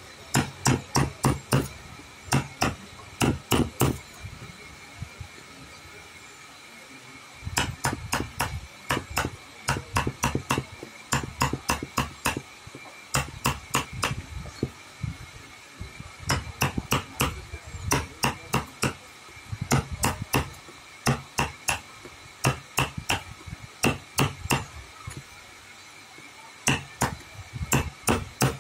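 Hammer tapping in quick runs of sharp strikes, about three or four a second, with short pauses between runs and one longer pause a few seconds in. A faint steady high tone runs underneath.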